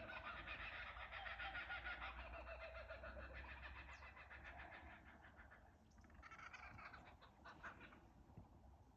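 A chorus of laughing kookaburras, several birds giving their rapid laughing call together. It dies down about five seconds in, then a shorter burst of calls comes and fades before the end.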